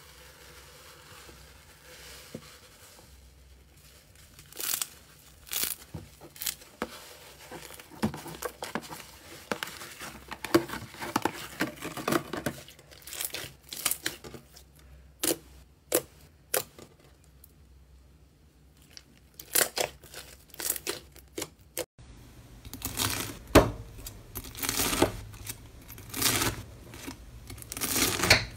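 Slime being poked, stretched and pulled by hand, making irregular sticky crackles and tearing pops. After an abrupt change about three-quarters of the way in, a knife slicing through crunchy bead-filled slime gives denser crackling.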